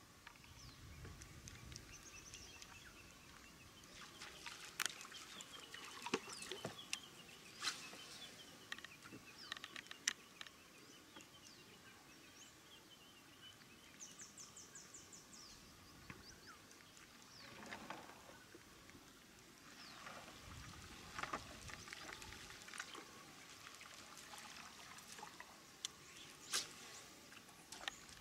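Wild birds chirping and calling over quiet riverside ambience, including one rapid trill about halfway through. Several sharp ticks stand out now and then.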